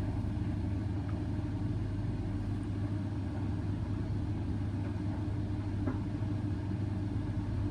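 Indesit washing machine running its hot main wash on an 85-degree baby cycle: a steady low motor hum as the drum turns.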